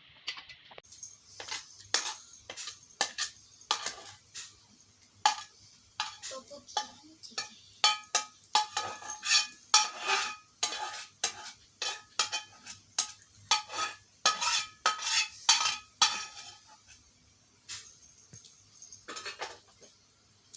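Dishes and metal cutlery clinking and clattering against each other in quick, irregular strikes, many leaving a short ring. The clatter dies away a few seconds before the end, with a couple of single knocks after.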